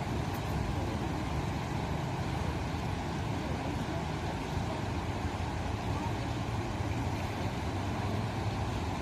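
Steady rushing of floodwater pouring through the fully opened gates of a river weir.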